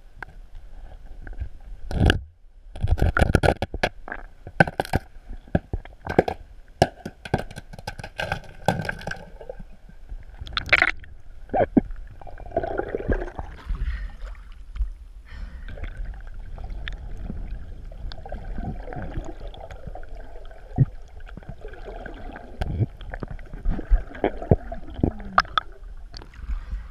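Water sloshing and gurgling around an action camera in its waterproof housing at the waterline of a kayak. There are many sharp knocks and clicks against the housing during the first ten seconds or so.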